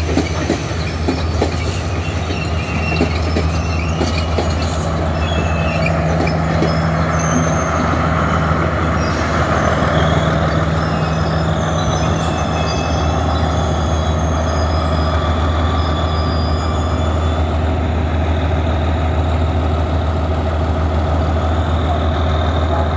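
Sri Lanka Railways Class S diesel multiple unit running slowly into the platform, its diesel engine giving a steady low drone. Wheels click over rail joints near the start, and thin wheel squeals come and go over the first half.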